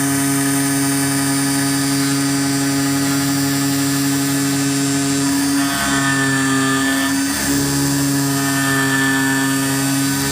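CNC flexible-material cutting machine running: a steady mechanical hum of several tones, whose pitch steps to new levels twice partway through.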